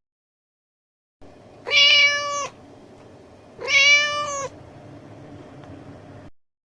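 Domestic cat meowing twice, two short meows about two seconds apart, each sliding up at the start and then holding steady. They sit over a faint background hiss that starts and stops abruptly, with dead silence at the start and end.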